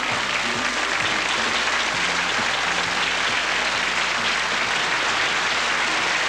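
Studio audience applauding steadily, with band music playing underneath.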